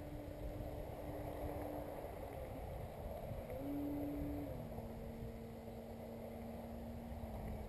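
Distant whine of an RC aerobatic plane's Motrofly 3615 625KV brushless motor and propeller flying overhead. It is a steady tone that breaks off about two seconds in, returns near the middle, then settles lower, pitch following the throttle, over a low rumble.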